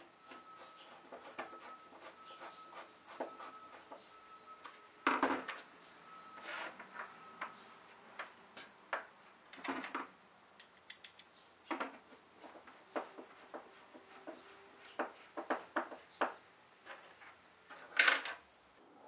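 Hand screwdriver turning screws into a metal latch plate on a wooden table underside: a run of small irregular clicks and squeaks, with a few louder knocks, one about five seconds in and one near the end.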